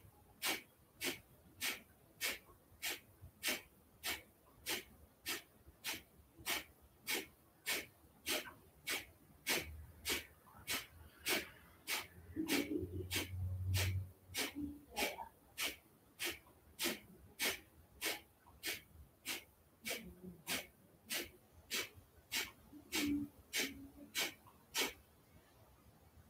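Kapalabhati breathing: short, forceful exhalations through the nose, a sharp puff about every three-quarters of a second, stopping shortly before the end. A brief low hum rises around the middle.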